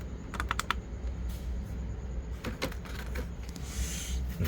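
Light clicks and rattles of the opened inkjet printer's plastic parts being handled, with a quick run of clicks about half a second in and a few more later, over a steady low hum.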